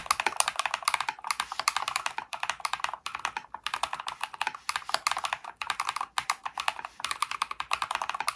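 Fast typing on a mechanical keyboard with Holy Panda tactile switches: a dense run of sharp keystroke clacks with short pauses about every second or two.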